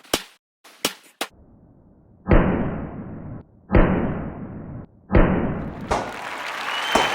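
Handgun shots: a few sharp cracks, then three louder shots, each followed by about a second of rushing noise that cuts off abruptly.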